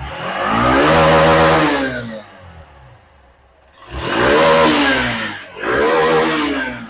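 Air-cooled single-cylinder motorcycle engine being revved in three blips, the pitch climbing and falling each time, the first about two seconds long and the last two close together. It is being run up just after a new aftermarket ignition coil and iridium spark plug were fitted.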